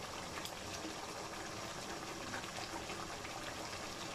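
Creamy beef curry simmering in a non-stick frying pan over a lit flame: a steady soft hiss with scattered small pops of bursting bubbles.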